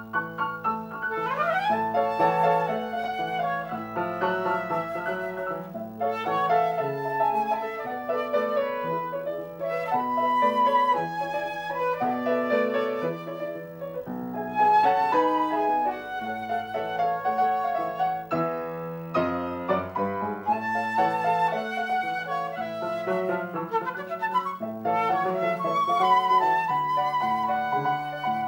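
Flute and grand piano playing a classical duo piece, the flute carrying the melody with quick runs over the piano accompaniment, including a fast upward sweep about a second in.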